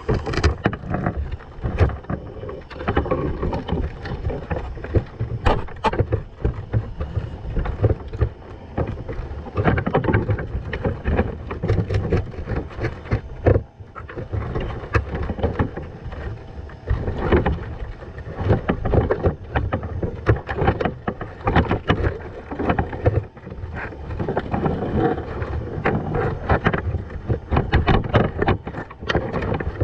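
Underwater camera audio: a muffled, surging rumble of water moving around the housing, with frequent sharp clicks and knocks throughout.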